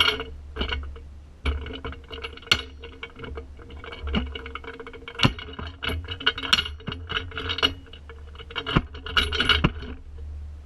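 Irregular metallic clicks, knocks and rattling as bolt cutters are worked against a padlock's hardened steel shackle, with a low rumble underneath.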